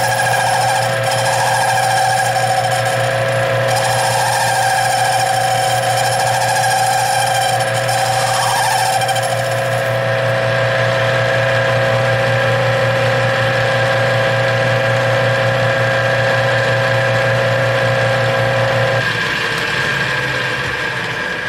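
Metal lathe running and taking a cutting pass on an aluminum workpiece, a steady motor hum with a wavering high whine from the cut over roughly the first half. About 19 seconds in the hum cuts off and the sound drops as the machine is shut down.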